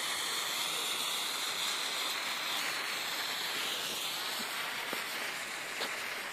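Weco firework igniter stick burning with a steady hiss, with a couple of faint crackles near the end.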